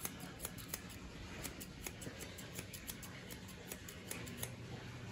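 Grooming shears snipping through a Portuguese Water Dog's curly head coat, a quick faint run of snips at about three a second that stops near the end.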